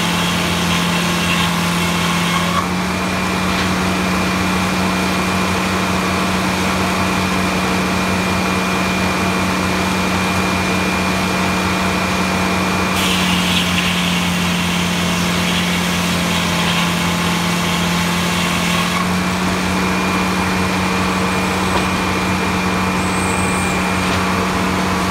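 Large circular sawmill running. Its power unit hums steadily throughout, while the big blade cuts through the log at the start and again for about six seconds in the middle, with a thin steady whine between cuts.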